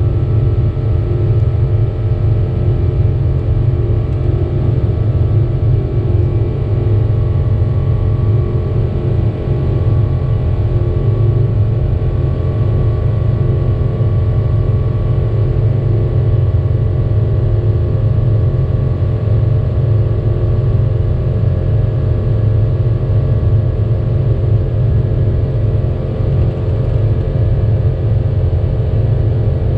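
Boeing 777-200 airliner heard inside the cabin in flight: a steady, loud low rumble and drone of the engines and airflow, with a few faint steady tones over it.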